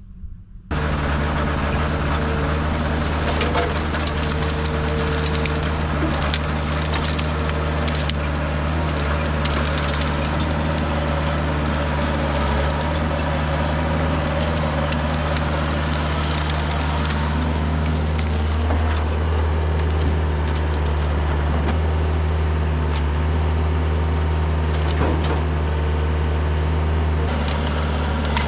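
Kubota mini excavator's diesel engine running steadily under load while its bucket and thumb grab and lift tangled brush, with repeated cracking and snapping of branches.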